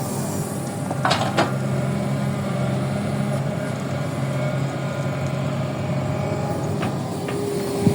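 Excavator working: a steady motor hum with a couple of sharp clacks about a second in and another near the end.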